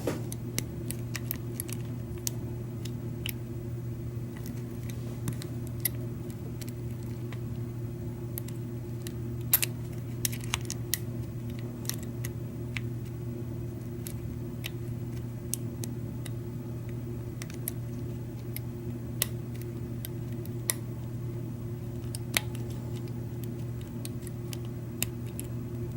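Lock pick and tension wrench working the pins inside a Schlage F-Series knob cylinder: scattered small, sharp clicks at irregular intervals over a steady low hum.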